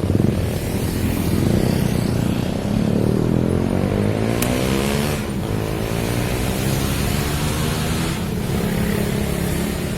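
Motor vehicle engine running, with its pitch gliding up and down for a couple of seconds in the middle.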